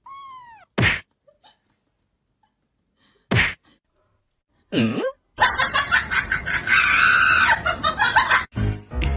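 A short cat meow, then a loud sharp whack about a second in and another around three seconds in as the grey cat swats at the kitten. A sliding sound follows, then a stretch of added laughter and music, with a different music track starting near the end.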